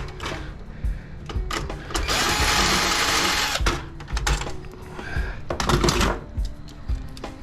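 A small power driver runs in one burst of about a second and a half, spinning out the brass standoffs that hold a computer motherboard. Clicks and knocks of metal parts and the tool come before and after it.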